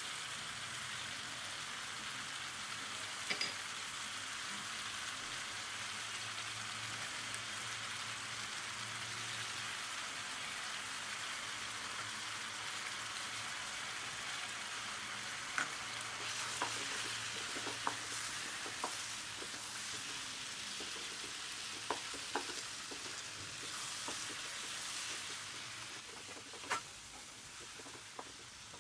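Chicken pieces, onions and spice powders sizzling in a pan with a steady hiss. In the second half a wooden spatula clicks and knocks against the pan a few times as the mix is stirred.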